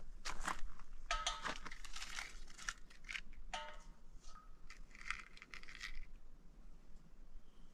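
Metallic clicks and clinks as a gas cylinder's valve and a small gas burner are handled, with a short hiss about five seconds in.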